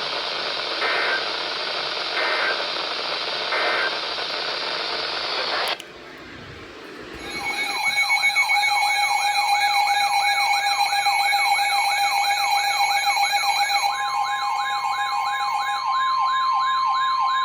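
Emergency Alert System broadcast audio. First come three short data-tone blips over radio hiss, the end-of-message bursts that close an alert. Then a new electronic alert tone starts: a fast warble of about three sweeps a second over steady tones, with a further steady tone joining about two-thirds of the way in.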